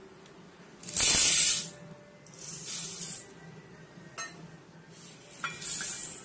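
Dry dal grains poured from a container into an empty stainless steel bowl, rattling and hissing onto the metal in three pours; the first, about a second in, is the loudest.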